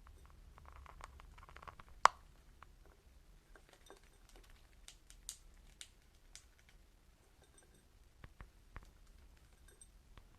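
Pet budgies moving about their cage: scattered light taps and pattering clicks, with one sharp click about two seconds in.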